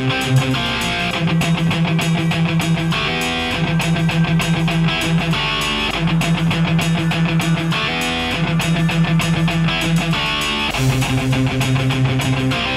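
Background music: a guitar-led track with chords changing every second or two over a fast, steady pulse.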